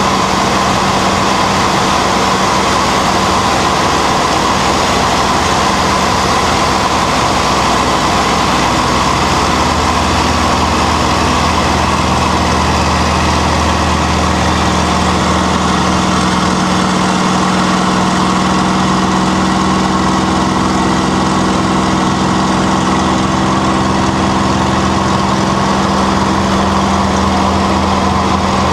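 P-51D Mustang's Packard Merlin V-12 engine running steadily in flight.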